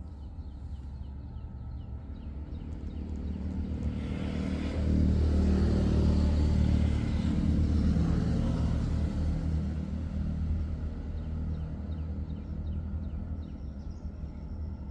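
A motor vehicle's engine passing by: a low rumble that grows louder over the first few seconds, is loudest about five to eight seconds in, then slowly fades.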